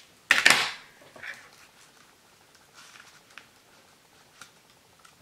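Paper being handled as a layered card and paper doily are adjusted by hand: a short, loud rustle about half a second in, then faint rustles and small taps.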